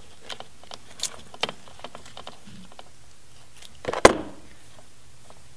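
Hand wire stripper cutting and stripping small electrical wires: a few light clicks and snips, then one loud sharp clack about four seconds in.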